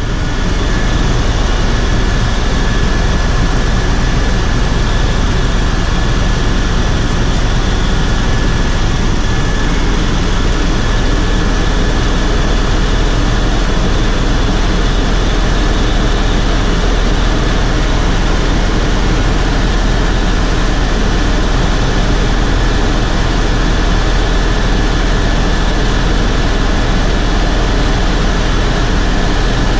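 Helicopter cabin noise in flight on the approach descent: a loud, steady deep rotor and engine rumble with a thin, steady high whine over it.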